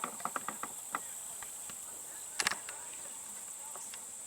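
A steady, high-pitched chorus of field insects drones throughout. A few short clicks come in the first second, and a sharp double crack comes about two and a half seconds in.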